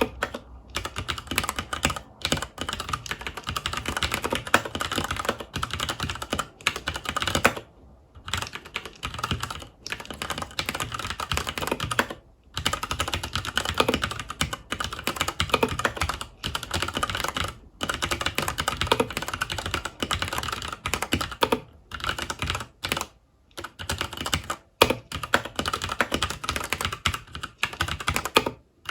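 Continuous fast typing on a FILCO Majestouch 2 HAKUA tenkeyless mechanical keyboard with Cherry MX Brown switches: a dense run of key clicks and keycap clacks, broken by brief pauses every few seconds.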